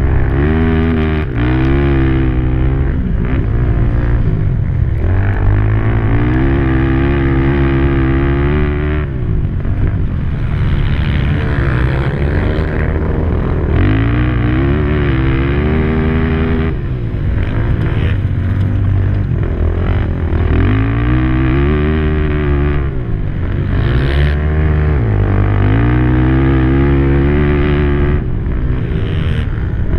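Race ATV (quad) engine heard from onboard, revving hard and rising in pitch on each straight, then falling back off the throttle into the turns, again and again. There are a few brief lulls where the throttle is let off.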